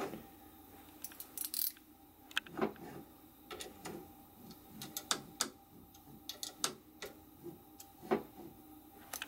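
Light, irregular clicks and ticks of a small hand tool on the nuts and screws that clamp an IGUS Drylin plastic bushing to a 3D printer's bed carriage, a few of them bunched together about a second in.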